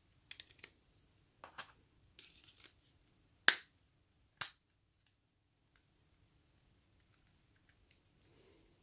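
Small plastic clicks and handling as a battery is pressed into a Nokia 5300 mobile phone and its plastic parts are fitted together, followed by two sharp snaps about a second apart in the middle, then only faint handling.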